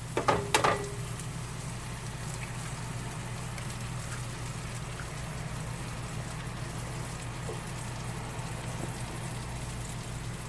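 Vegetables and butter sizzling steadily in a frying pan over a low steady hum, with two sharp knocks in the first second.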